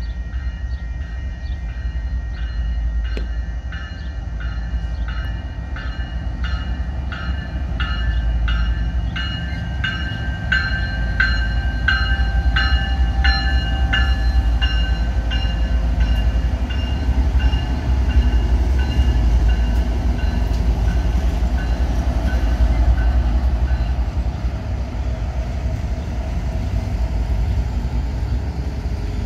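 Diesel-hauled freight train passing close by, its locomotives and wheels rumbling on the rails, with a warning bell ringing about twice a second that fades away about three-quarters of the way through.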